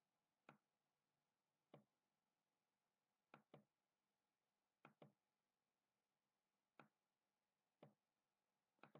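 Faint computer mouse clicks over near silence, some single and some in quick pairs.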